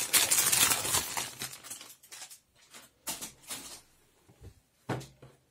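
Clear plastic bag crinkling as a folded T-shirt is pulled out of it: a dense rustle for the first second or so, then a few short, softer rustles.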